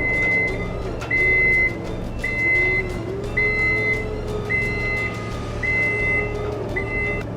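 Vehicle reversing alarm beeping: seven steady high-pitched beeps about a second apart, over a low engine hum.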